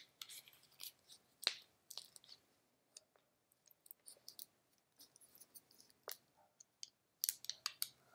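Faint, scattered clicks and taps of hands handling a taped bundle of paintbrushes and masking tape on a small glass jar, with a quick cluster of sharper clicks near the end.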